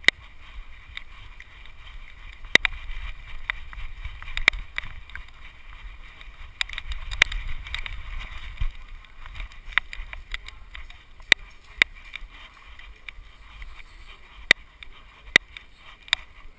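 Rubbing and bumping noise from a GoPro strapped to a moving dog: a steady low rumble and rustle, broken by sharp clicks or knocks every second or so at irregular intervals.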